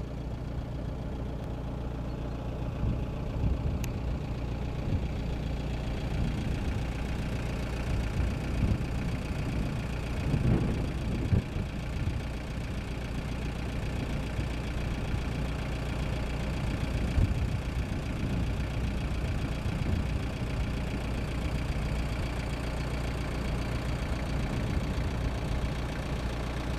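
A 4x4's engine running steadily at idle, a low rumble with small rises and falls.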